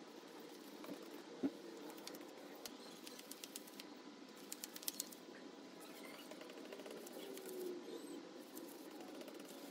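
Paintbrush strokes laying shellac-based primer onto MDF, soft and faint, with scattered light clicks of the brush against the primer tin and one sharper knock about one and a half seconds in.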